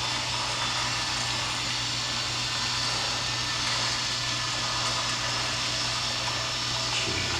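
Small electric drive motors of a Radio Shack Make: It robot kit running steadily, with a constant low hum.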